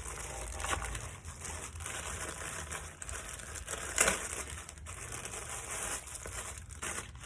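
A mailed package being torn open and its wrapping crinkled and rustled by hand, with a sharper, louder rip about four seconds in.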